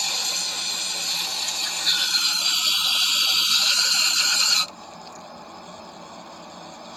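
Aerosol spray cleaner hissing in one long burst onto starter motor parts. It cuts off sharply about two-thirds of the way through, leaving a fainter steady hiss.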